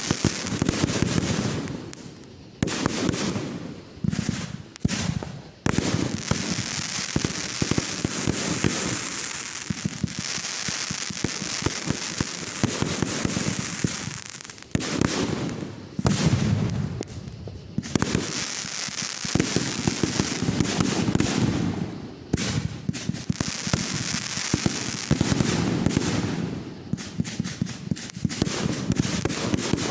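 Aerial fireworks going off in quick succession: a dense run of sharp bangs and crackling, broken by a few brief lulls.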